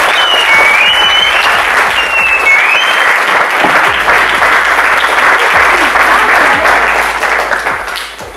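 Audience applauding steadily after a talk, with a few short high whistles in the first three seconds. The clapping tapers off near the end.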